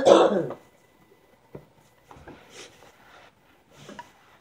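A loud cough trailing off about half a second in, then faint rustling and a couple of light clicks as a book is slid into the fabric pocket of a zippered binder.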